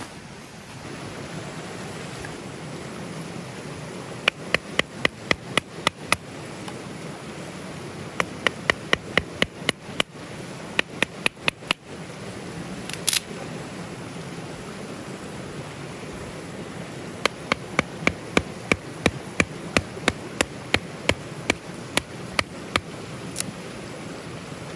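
A river running steadily, with runs of sharp, loud clicks or taps at about four a second, three times over, and a brief hiss about halfway through.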